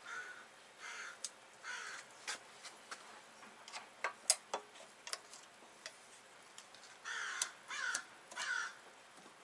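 Scattered sharp metallic clicks from circlip pliers and a wheel-bearing circlip being worked into the groove of a VW G60 Corrado spindle. Three short louder rasping bursts come near the end.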